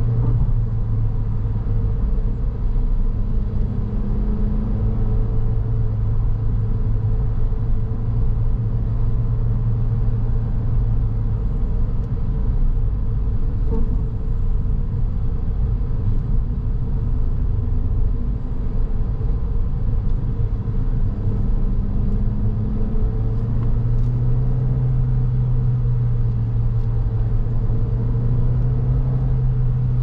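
Car driving, heard from inside the cabin: a steady low engine hum over road and tyre rumble. The engine tone eases off for a stretch in the middle and comes back near the end.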